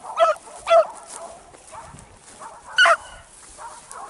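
Beagle barking: two barks about half a second apart, then a third about two seconds later, with fainter barks between.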